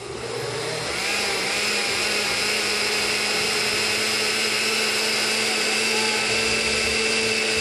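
Countertop blender motor spinning up over about the first second, then running steadily as it blends a liquid flan mixture of milk, eggs and cream cheese.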